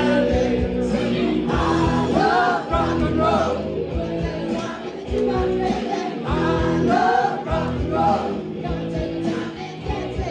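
Live rock cover band playing: a woman singing lead over electric guitars, keyboard and drums, in two sung phrases.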